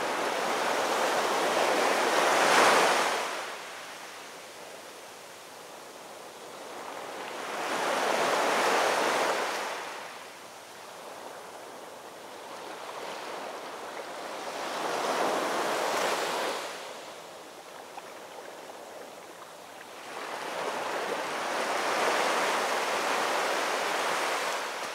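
Surf breaking on a beach: four surges, each swelling and fading over a few seconds, about six or seven seconds apart, with a quieter wash between them.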